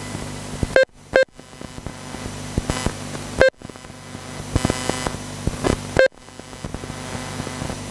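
Four short beeps from a race lap-timing system as cars cross the timing line, spaced irregularly over a steady low hum. Twice an RC buggy's motor whines upward as it accelerates past.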